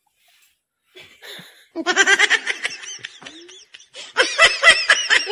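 A woman laughing hard in two bouts, the first about two seconds in and the second about four seconds in.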